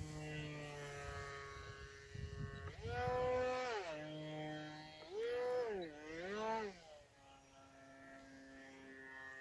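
Small foamboard RC aerobatic plane's electric motor and propeller whining in flight. About 3 s in the throttle is opened and the whine jumps up in pitch and loudness, then there are two more quick throttle blips before it settles back to a lower steady whine.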